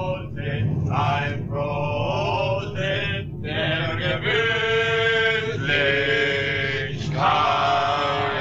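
A group of men singing a song together, with some long held notes.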